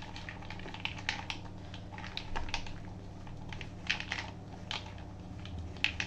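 A spatula stirring a bowlful of chopped vegetables, sweet corn and peanuts in a plastic bowl, making irregular quick clicks and scrapes.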